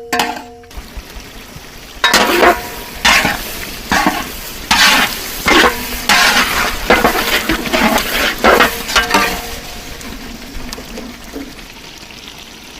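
Utensil stirring and scraping through food frying in a pan: about a dozen quick strokes in a row, then a softer sizzle near the end.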